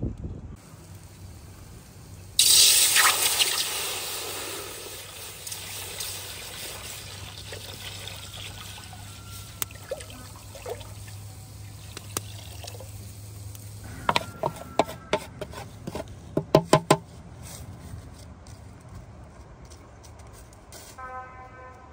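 Liquid pouring and splashing, starting suddenly about two seconds in and fading over a few seconds, followed later by a quick run of sharp clinks.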